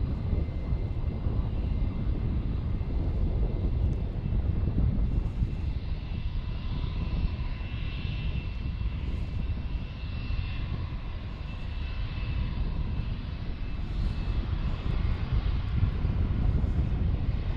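Lufthansa Boeing 747's four jet engines at takeoff power as it takes off: a deep, steady rumble with a thin, steady whine above it, easing a little midway and swelling again near the end.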